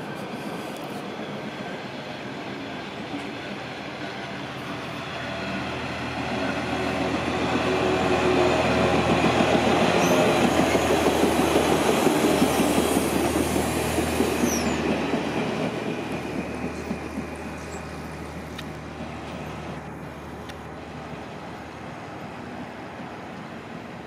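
A Sperry hi-rail rail-inspection truck running along the track. It grows louder as it approaches and passes close by, about 8 to 15 seconds in, then fades as it moves away, with a couple of brief high squeaks from the wheels on the rail as it passes.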